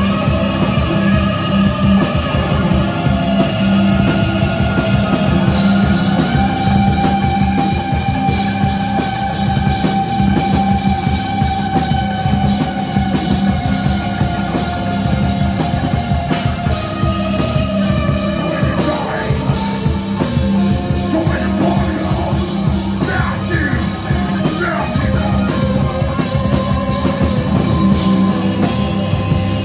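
Rock band playing loud live, with a drum kit pounding steadily under sustained guitar lines.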